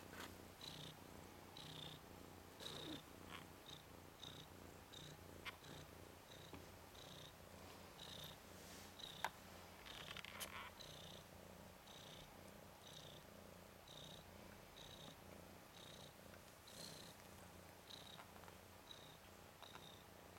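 Faint, steady purring from a Ragdoll mother cat nursing her ten-day-old kittens, pulsing about once a second. A single sharp click comes about nine seconds in.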